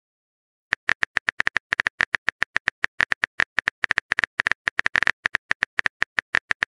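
Rapid keyboard-tap click sound effect of a phone texting app as a message is typed out, about eight to nine short clicks a second, starting about a second in.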